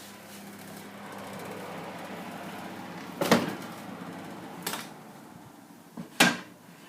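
A kitchen oven is opened and its metal tray handled: a low steady hum, then three sharp metallic clanks about a second and a half apart.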